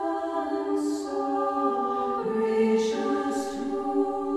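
Women's choir singing a sacred piece a cappella, with long held notes.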